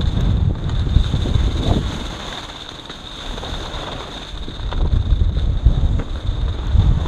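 Wind buffeting the microphone of a camera moving fast down a ski slope: a steady low rumble that eases off for a couple of seconds in the middle and then picks up again.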